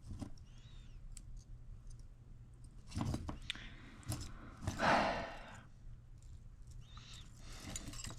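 Hand-work noises on the scooter's front end: scattered small clicks, a few knocks about three seconds in and a louder rustling scrape about five seconds in, over a steady low hum.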